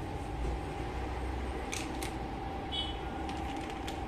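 Indoor room tone: a steady low hum with a constant faint tone, a few light clicks, and a brief high-pitched blip a little under three seconds in.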